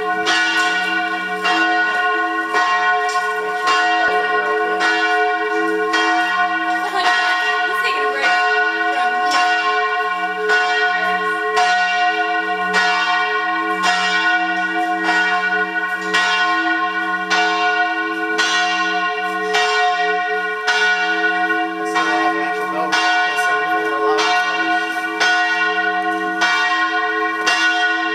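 Church bells pealing continuously, with fresh strikes coming a little faster than once a second over a steady wash of overlapping, ringing bell tones.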